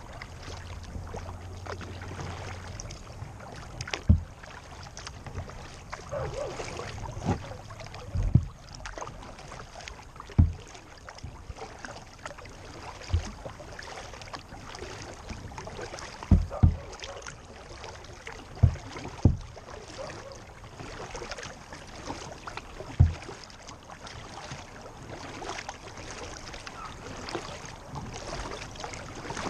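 Lake water lapping and rushing along a kayak hull, broken by about ten dull, irregular knocks on the hull.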